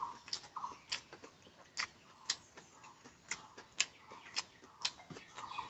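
Close-miked eating sounds: wet mouth clicks and smacks while chewing, about eight sharp irregular clicks, with a few short crackly chewing bursts at the start and near the end.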